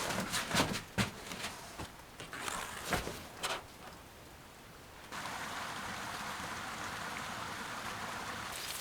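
A few sharp knocks and clicks, then about five seconds in a steady hiss of rain starts abruptly and keeps on evenly.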